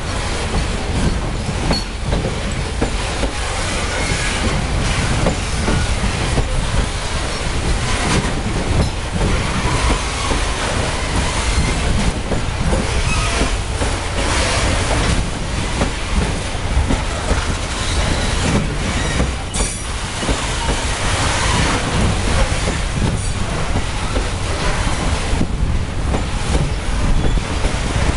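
Loaded bauxite freight wagons rolling past close by. Steel wheels rumble and clack over the rail joints, with brief faint wheel squeal now and then.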